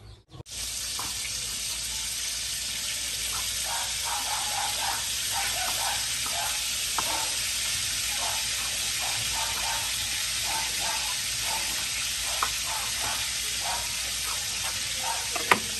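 Pork frying in hot oil, a steady sizzle, with soft irregular knocks of a knife chopping cooked pork belly on a wooden board.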